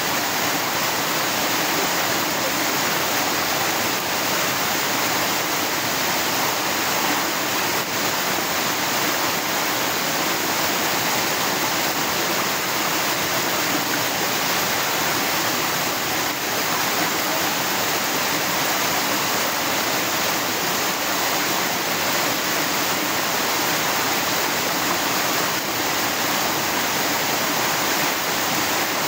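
Small spring-fed stream waterfall pouring over rocks, a steady, unbroken rush of water.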